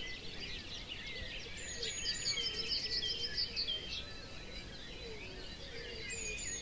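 Morning chorus of many songbirds singing at once: overlapping high chirps, trills and short whistled phrases, with some fainter lower notes underneath.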